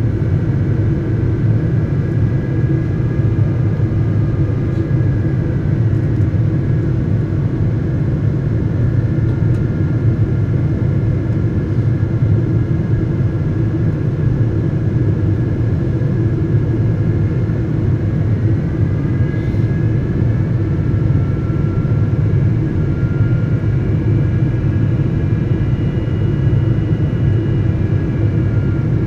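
Steady cabin noise of a Boeing 777-200 airliner in flight: a deep, even rush, with faint whining tones above it that shift in pitch about two-thirds of the way through.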